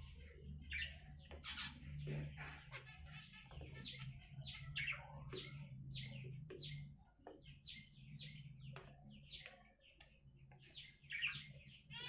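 Small cage birds, budgerigars and finches, chirping busily in many short, quick calls, over a faint steady low hum.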